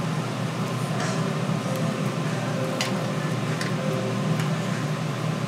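Steady background noise of a street food stall: a low rumble with a few short, light clicks.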